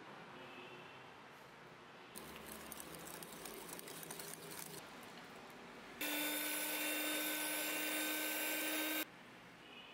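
Egg yolk batter being whisked in a glass bowl, with light clattering, then an electric mixer beating egg whites in a glass bowl: a loud steady motor whine that starts suddenly about six seconds in and cuts off about three seconds later.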